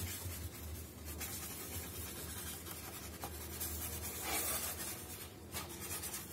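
Paintbrush bristles scrubbing and dabbing thick paint on a polystyrene foam block as colours are mixed into a skin tone: an irregular soft scratching, a little louder near the end, over a low steady hum.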